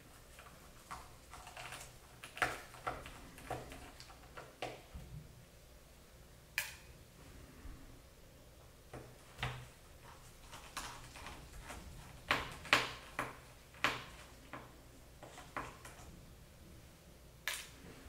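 Irregular small clicks and taps of a screwdriver working the screws out of a Dell XPS laptop's aluminium bottom panel, metal ticking against metal, the loudest cluster a little past the middle.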